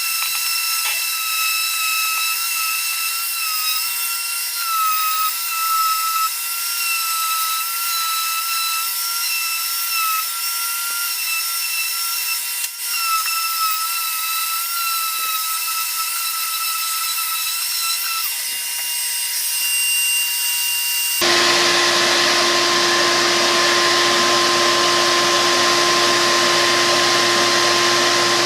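Ridgid 5-inch random orbit sander with a 60-grit disc running against wood, a steady high whine that wavers slightly in pitch as it is worked. About three-quarters of the way through it cuts suddenly to a louder, steadier machine hum with a lower fixed tone.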